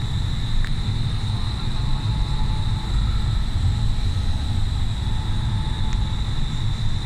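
Indoor skydiving vertical wind tunnel running: a steady, loud low rushing roar of the airflow and fans, with a steady high-pitched tone over it.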